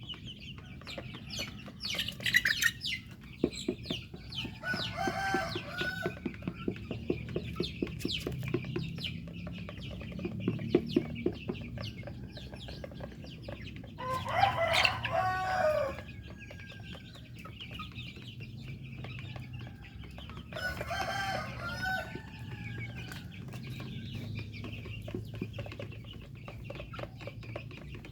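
Domestic chickens clucking, with roosters crowing several times; the loudest crow comes about halfway through. A quick run of small taps fills the first half.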